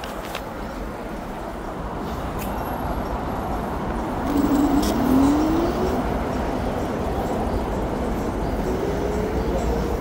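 City street traffic noise with a steady low rumble, as a motor vehicle's engine rises in pitch about four seconds in, loudest then, and rises again near the end.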